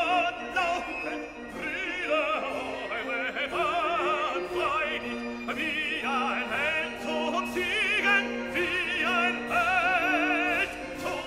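Background music: a high operatic voice singing with strong vibrato over orchestral accompaniment.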